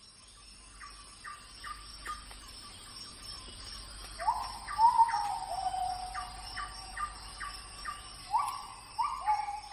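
Birds calling: a repeated series of short descending notes, two or three a second, joined by louder falling calls about four seconds in and again near the end, over a steady high insect-like hiss and a low rumble of surf.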